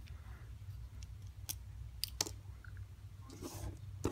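A few small, sharp clicks and a short scrape of a Phillips screwdriver working screws out of a Shimano Calais baitcasting reel, over a steady low hum.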